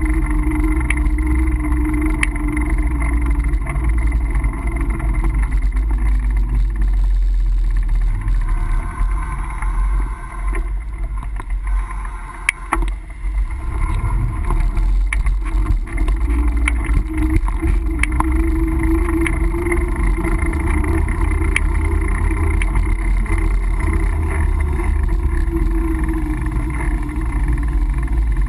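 Steady low rumble of wind and rolling noise on a bike-mounted action camera while cycling. It eases for a few seconds midway, and there is one sharp click.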